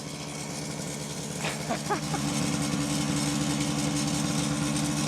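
1950s DKW motorcycle's two-stroke engine running at a steady pitch, getting louder about two seconds in. A brief voice-like sound comes about two seconds in.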